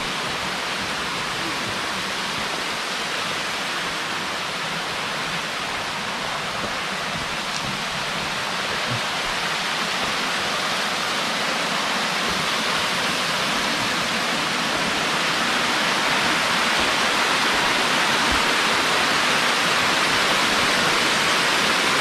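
Steady rushing of the Wedenbach cascade waterfall as water spills over tufa rock, growing gradually louder over the second half.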